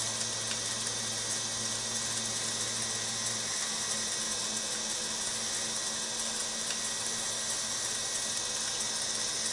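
Wood lathe running at slow speed with the workpiece turning, a steady motor hum and hiss while linseed oil is wiped onto the spinning lid. A lower part of the hum drops away about a third of the way through.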